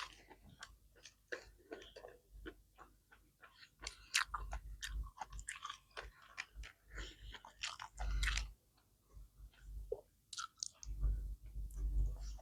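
Close-up mouth sounds of a person chewing sushi and seaweed salad: a dense, irregular run of short clicks and smacks, with a few dull low thumps along the way.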